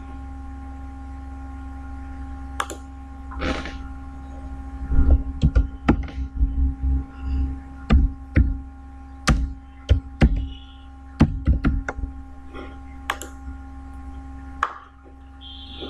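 Irregular computer keyboard keystrokes and mouse clicks, sharp taps with dull low thumps, over a steady electrical hum.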